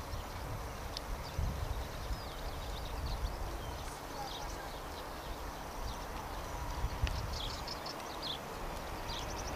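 Small birds chirping repeatedly over a low, uneven rumble with a faint steady whine. The rumble and whine are the Dassault Falcon 7X's three Pratt & Whitney PW307A engines at low power as the jet slows on its landing rollout.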